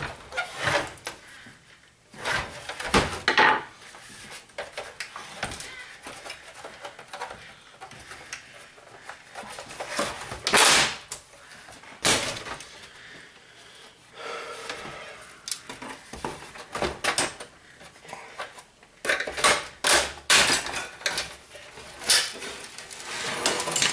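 Xbox 360 plastic casing and metal chassis being pried apart with a flathead screwdriver and handled: irregular clicks, snaps and knocks of plastic and sheet metal, with a busier run of them near the end.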